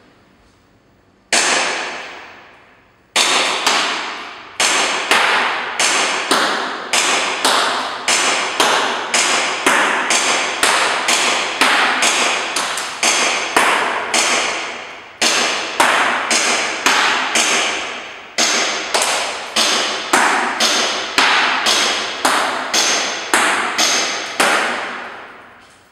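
Airsoft BBs striking a target in quick succession. Each hit is sharp and rings briefly. Two single hits come first, then a steady run of about two hits a second that stops shortly before the end.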